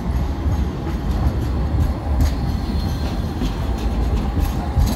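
Sydney light rail tram (Alstom Citadis) rolling past at close range: a steady low rumble from its running gear, with a few faint clicks and rattles.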